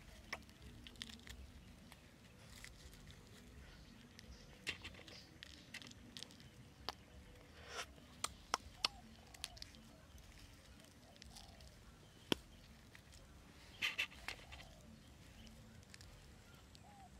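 Faint scattered clicks and crackles as a roasted goose egg is peeled and broken apart by hand, with one sharper snap about twelve seconds in and a small cluster of clicks shortly after.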